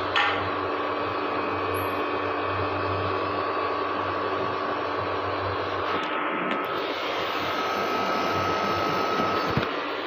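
Window air conditioner running with its newly fitted compressor and blower fan, a steady airy hum, while being charged with R22 refrigerant. A sharp click right at the start and a small knock near the end.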